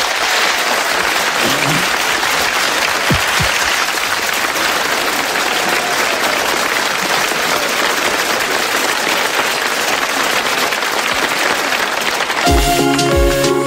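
Theatre audience applauding steadily. Near the end the band's introduction to the song starts, with a steady beat.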